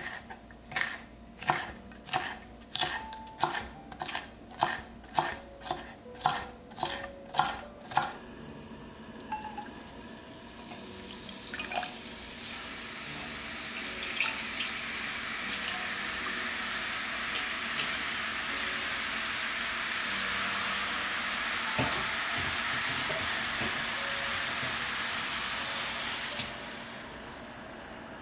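A chef's knife slices red bell pepper into strips on a wooden cutting board, chopping about twice a second and stopping about 8 seconds in. Then glass noodles cook in a stainless-steel wok with a steady sizzle that slowly grows louder, with a clink or two from the pan.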